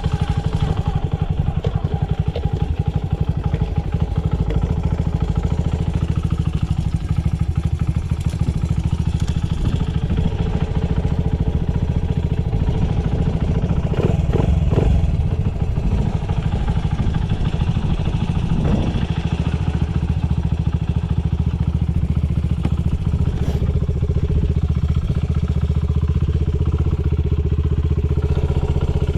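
Honda Ape motorcycle's Ape 100 single-cylinder four-stroke engine idling steadily through a Yoshimura titanium exhaust, with a short, slightly louder patch about halfway through. It runs without abnormal noise, as the seller states.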